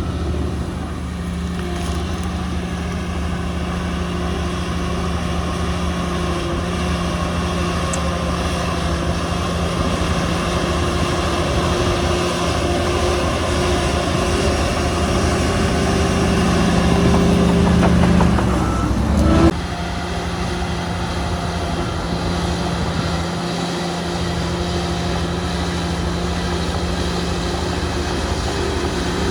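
Heavy diesel engine of earthmoving machinery running steadily under load. It grows louder, rises briefly in pitch and then drops back abruptly about two-thirds of the way through, settling again to a steady run.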